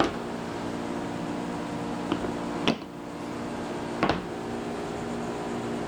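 A steady electrical appliance hum, with four short sharp clicks and knocks spread through it, the loudest about two-thirds of the way in.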